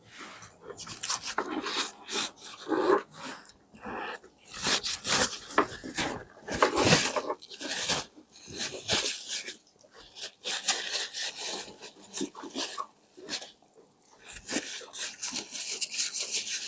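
Wet chewing and lip-smacking from people eating brown stew pig trotters and rice, with irregular sharp mouth clicks in clusters and short pauses between.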